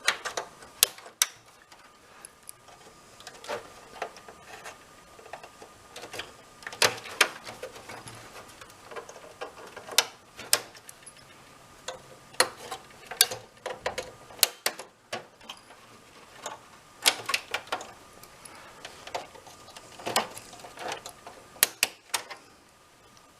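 Irregular sharp plastic clicks and snaps as the clip tabs of an Xbox 360's plastic case are pushed in and released one after another.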